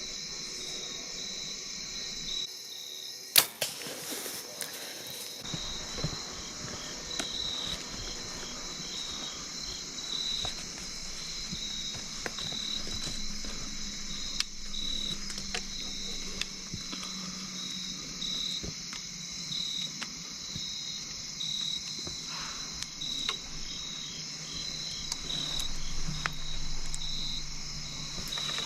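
A single sharp snap of a bow being shot at a deer, about three seconds in, over the steady pulsing chirp of crickets.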